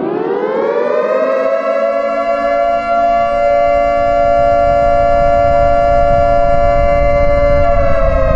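Air-raid siren winding up in pitch over the first second or so, then holding a steady wail, with a low rumble building underneath. The pitch starts to sag slightly near the end.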